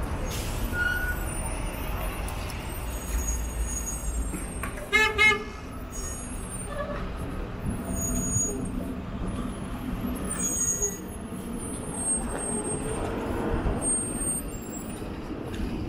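Street traffic noise with a steady low rumble, broken about five seconds in by a vehicle horn giving two short honks in quick succession.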